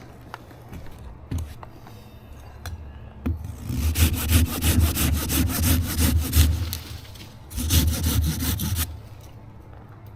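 A hand pruning saw cutting through a basswood limb with quick, even back-and-forth strokes, about five a second. It saws for about four seconds, stops briefly, then gives a second short spell of strokes.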